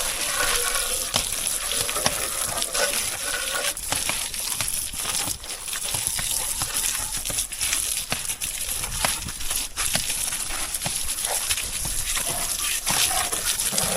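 Water spraying and splashing on a motorcycle as it is washed: a steady hiss with small irregular spatters and ticks.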